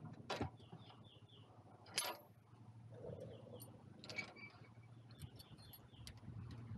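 Faint clicks and metal clinks of a socket wrench working the old stabilizer's 24 mm nut off the tractor's lift arm, with one sharper ringing metal clink about two seconds in.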